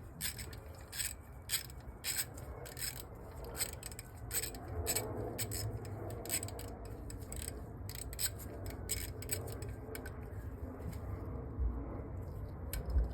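Small metal carburettor parts and hand tools clicking and scraping as an Edelbrock carburettor is taken apart: irregular light clicks, many in the first half and fewer later, with a couple of dull knocks near the end.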